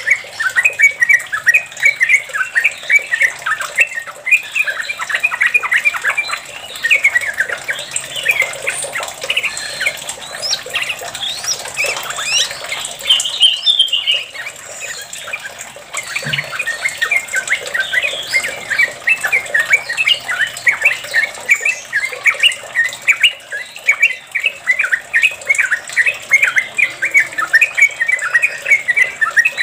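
Yellow-vented bulbul singing in fast, continuous chattering rolls of quick rising and falling notes. The chatter loosens in the middle, with a few higher notes, before the dense rolls pick up again.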